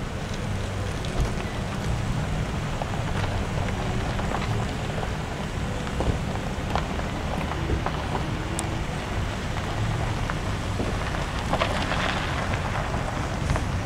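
Reading & Northern 425, a 4-6-2 steam locomotive, approaching slowly: a steady hiss over a low rumble, with a few faint clicks and the hiss swelling briefly near the end.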